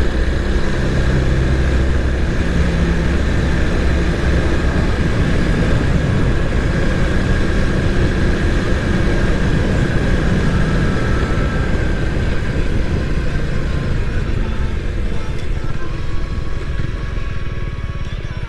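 Honda Rebel 250's single-cylinder engine running steadily while the motorcycle is ridden, with wind rushing over the microphone.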